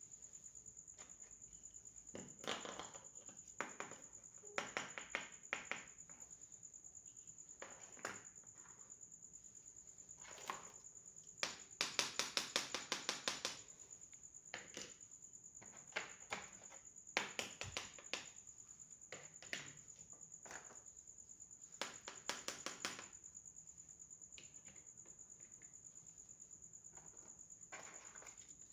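Small plastic toy kitchen pieces handled and set down, giving irregular clusters of sharp clicks and taps, with a fast rattling run of clicks about halfway through. A steady high-pitched whine sits underneath throughout.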